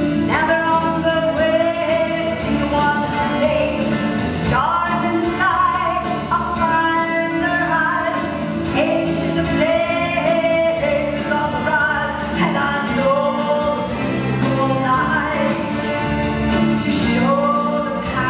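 A woman singing a song from a stage musical, with live instrumental accompaniment and a steady beat.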